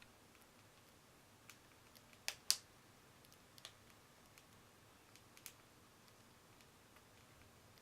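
Budgies pecking at food: scattered small sharp clicks and taps of beaks, a loud pair close together about two and a half seconds in.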